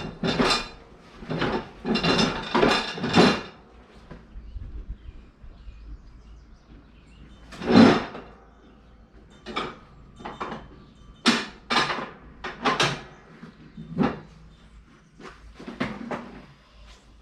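Irregular metal clanks and knocks, some ringing briefly, from a steel lawn tractor mower deck being handled and shifted into position.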